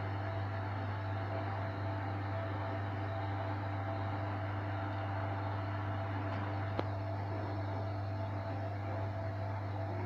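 Hoover Electronic Automatic de luxe washing machine spinning at a steady speed on its spin-dry cycle: a constant motor hum that holds one pitch, with a single click a little under seven seconds in.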